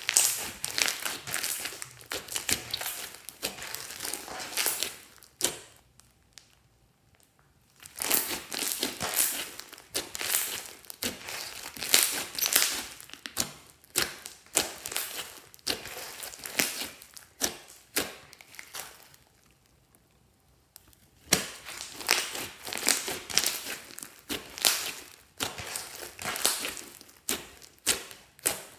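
Thick pink slime being kneaded and poked with fingers, with dense sticky crackling and clicking. The sound comes in three long spells, with short pauses about six seconds in and again near twenty seconds.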